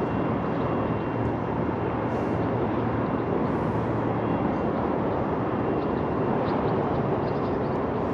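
Boat motor running steadily with the boat under way: an even rushing noise with a low hum. Two brief hisses come about two and three and a half seconds in.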